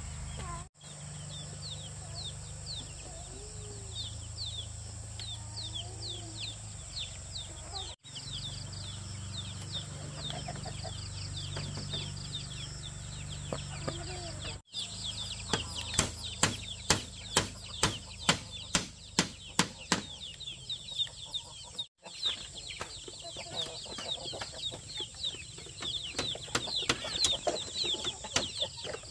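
Chicks peeping over and over in short falling chirps. About halfway through, a run of sharp knocks starts, roughly two to three a second.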